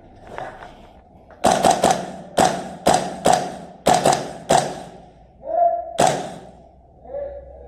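Airsoft gun firing a run of about ten sharp single shots in quick pairs and threes, each with a short ringing echo.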